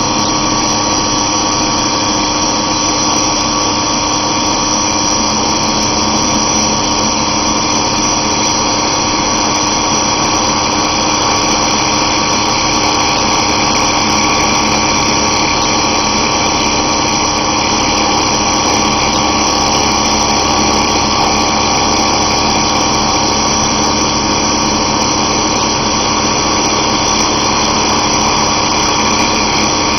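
Wood router running steadily at high speed, its bit cutting a circular groove in a wooden box base as the workpiece is turned on a rotary table.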